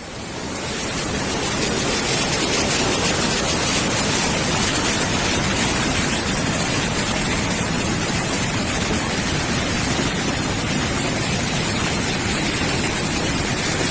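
Rushing floodwater: a loud, steady roar of water noise that swells in over about the first two seconds and then holds even.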